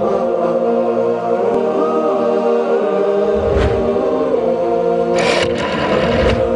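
Programme theme music built on sustained, chant-like choral voices. A brief swish about three and a half seconds in, and a louder hiss of noise from about five to six seconds, mark the graphic transitions.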